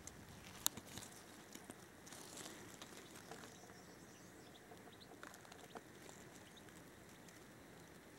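Near silence, broken in the first few seconds by faint crackling of loose soil and one sharp click as a small stone is lifted off the ground by hand, then a few faint ticks.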